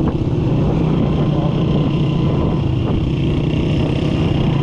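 Small motorcycle engine running at a steady cruise, a constant hum, with wind and road rush over the microphone.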